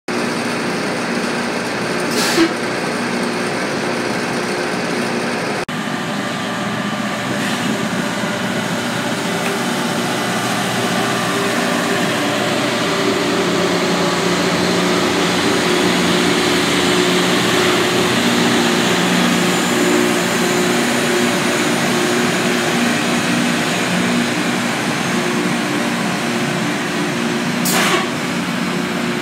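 Loram rail grinder at work: a steady drone from its engines under a rough, even hiss of grinding stones on the rail. There are two brief sharp knocks, about two seconds in and near the end.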